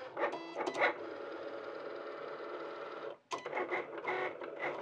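Cricut Explore Air 2 cutting machine making its first test cut in cardstock: its motors whine steadily as the carriage and mat move. There are a few quick surges about a second in, a brief pause just after three seconds, then a run of short, choppy moves.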